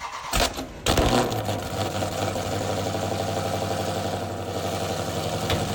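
Car engine starting up about a second in, then running at a steady, loud idle. This is a cold start: the cold engine is held at raised revs with extra fuel to warm the engine and catalytic converter quickly.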